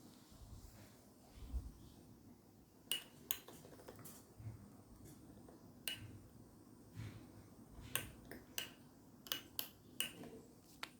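Faint sharp clicks at irregular intervals, about a dozen, with a few soft low thuds, over a faint low steady hum.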